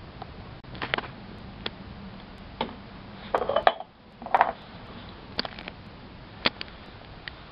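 Porcelain cups and bowls clinking and knocking against each other and the concrete floor as they are handled, with sharp single clinks scattered through and two louder clattering stretches near the middle.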